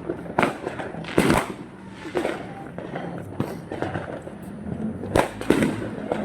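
Fireworks bursting: about six sharp bangs at irregular intervals, the loudest about a second in and two close together near the end.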